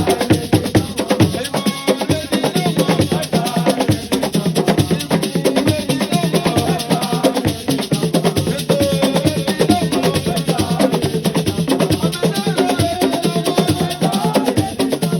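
Assiko music: drums, rattles and wood-block-like strikes playing a fast, dense rhythm.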